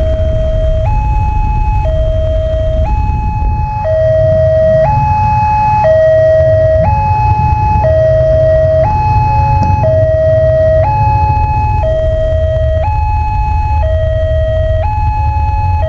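Railway level-crossing warning siren sounding its two-tone alarm, switching between a lower and a higher tone about once a second, over a steady low rumble. The alarm signals that the barriers are closed for an approaching train.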